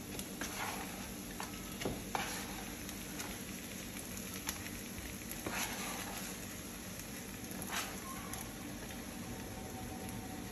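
Chopped onions sizzling in oil in a frying pan while washed, drained rice is tipped in from a container. Scattered light clicks and taps run through the sizzle.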